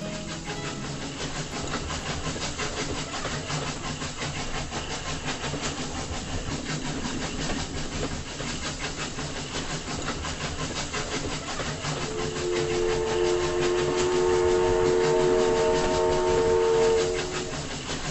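A train running with fast, rhythmic wheel clatter on the rails. About two-thirds of the way through it sounds one long, steady multi-note horn blast lasting several seconds, which is the loudest part.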